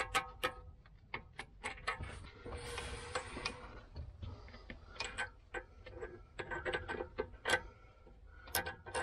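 Irregular light metallic clicks and clinks, some with a short ring, as a steel shear bolt and its nut are handled and fitted by hand into a snowblower's PTO driveshaft yoke to replace a broken shear pin.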